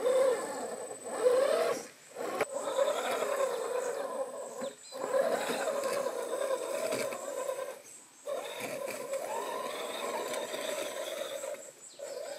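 A 1/8-scale RC crawler's brushed 550 electric motor and geared drivetrain whine under changing throttle as it crawls over rocks, the pitch rising and falling. A thin high steady whine sits above it, and the sound drops out briefly several times.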